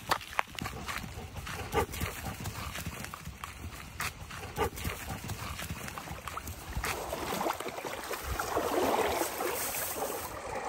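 Footsteps in sandals crunching on dry pine needles and twigs: irregular sharp steps. In the second half a steady rushing noise takes over and is the loudest part.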